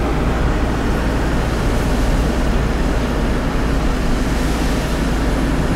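Steady road noise of a moving car heard from inside the cabin: a constant low rumble with a hiss over it.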